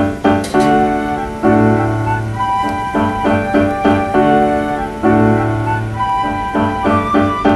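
Instrumental background music led by a piano, with a steady run of notes.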